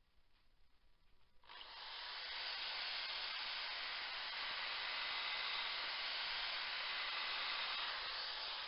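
Sanding the elm dish: a steady abrasive hiss that starts abruptly about a second and a half in and holds level.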